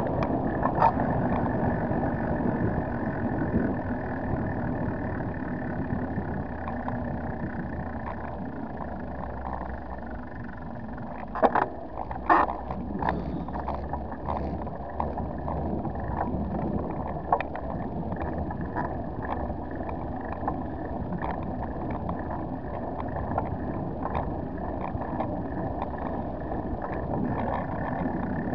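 Riding noise picked up by a bicycle-mounted camera: a steady rush of tyres rolling on asphalt and wind on the microphone, with small rattles and knocks throughout, the loudest a pair about halfway through.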